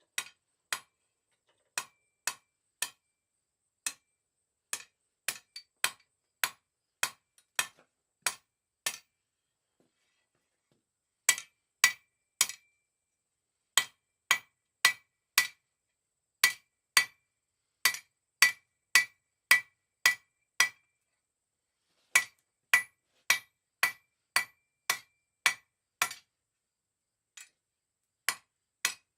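Hand hammer striking hot mild steel round bar on an anvil, blows coming about two a second in runs with short pauses. Many of the later blows leave a short ring.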